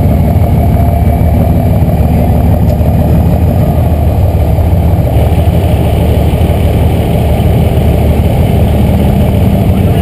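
Pickup truck engine idling steadily at close range, through the exhaust stack that rises out of the truck's bed.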